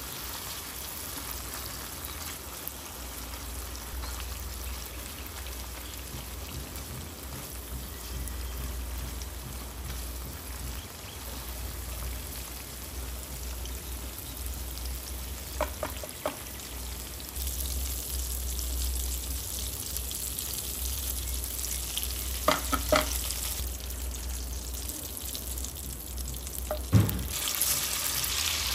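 Food sizzling as it fries in a pan, a steady hiss. A few short knocks of a utensil against the pan come about halfway through and again near the end.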